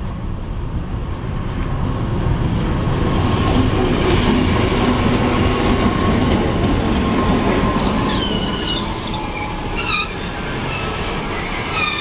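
2TE116 two-section diesel locomotive running past close by, loudest as its sections go by, then the coaches of a passenger train rolling past. From about eight seconds in there are repeated high squeals from the wheels.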